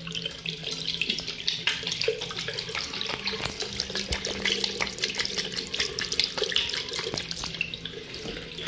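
Armitage Shanks lever mixer tap running into a ceramic washbasin, water splashing steadily onto the bowl and into the drain, with a faint low steady hum underneath.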